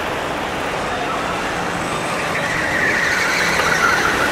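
Sodi RT8 rental kart engines running around the track over a steady rush of noise, with one kart's high engine note coming up and growing louder a little over halfway in as it passes close.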